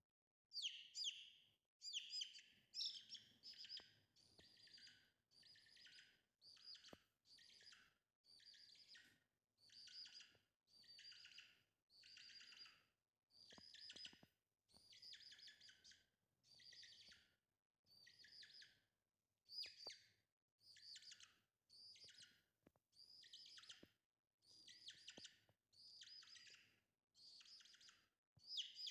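Young chicken chick peeping: a quick cluster of high, falling peeps about once a second, repeated over and over.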